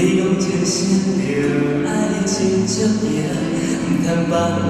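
Live folk ballad: a male vocalist singing in Taiwanese Hokkien, accompanied by two acoustic guitars.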